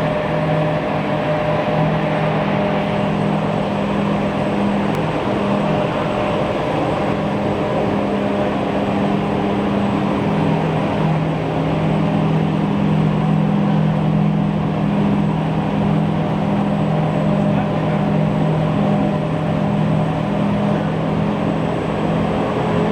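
Six-colour stack-type flexographic printing machine running steadily: a continuous, even machine noise with a low steady drone.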